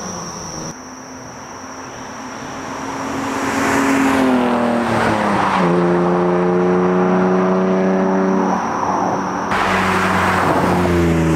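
BMW E36 M3 straight-six accelerating hard toward and past, loud: the engine revs up, drops briefly at a gear change about four to five seconds in, pulls again, then the pitch falls as it goes by near the end.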